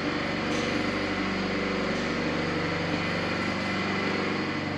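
Steady low hum of funicular station machinery, several steady tones over an even hiss, unchanging throughout.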